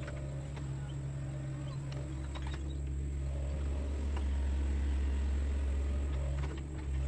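Sunward mini excavator's diesel engine running steadily, with scattered light clicks and knocks from the machine working. The engine gets a little louder about four seconds in.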